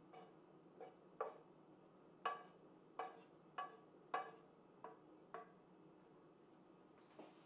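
A wooden spoon tapping against a frying pan as sauce is scooped out of it: about ten faint, light knocks with a short ring, irregularly spaced, stopping about five and a half seconds in, with one more near the end.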